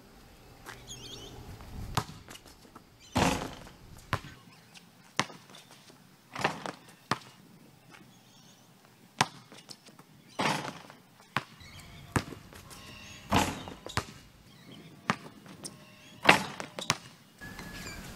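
A basketball bouncing on an outdoor concrete court, with four louder hits with a short ring as the ball and hands strike the rim and backboard on the dunks.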